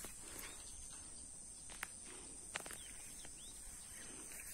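Open-air riverside ambience: a steady high insect drone with a few short bird chirps, and two sharp clicks just under a second apart about two seconds in.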